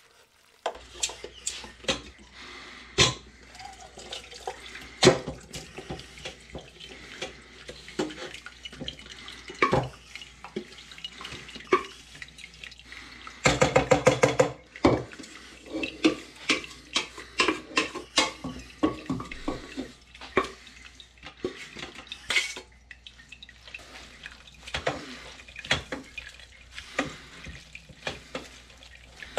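Kitchen clatter: repeated clinks and knocks of dishes and utensils, with a quick run of rapid tapping about halfway through.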